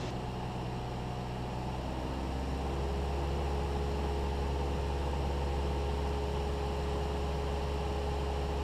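Cessna 172's four-cylinder piston engine and propeller droning steadily in cruise, heard from inside the cabin. About two seconds in, the engine note shifts and grows slightly louder, then holds steady.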